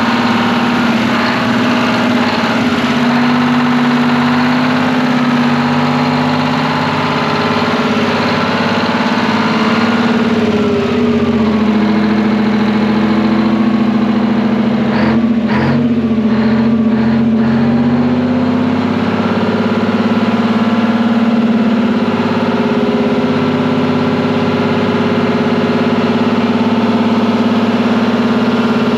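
Twin-turbo Detroit Diesel 12V71 two-stroke V12 on a generator set, running steadily with the fan shroud no longer clattering. Its speed sags slightly about ten seconds in and recovers, with a few sharp knocks around the middle.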